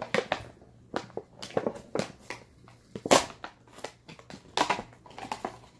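A toy truck's box packaging being handled and pried open: irregular clicks, crackles and scrapes, the loudest a sharp snap about three seconds in.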